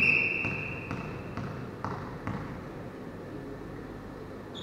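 Referee's whistle blown once at the start, a single steady tone that fades over about a second. It signals the serve. Then a volleyball is bounced on the hall floor about five times, roughly twice a second, as the server readies to serve.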